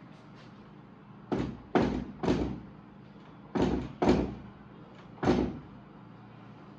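Knocking on a wooden door with a fist: six heavy knocks, three close together, then two, then one after a pause, each ringing out briefly.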